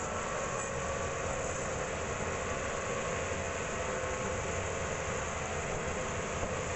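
Sawmill band saw running with a steady machine drone, unchanging throughout.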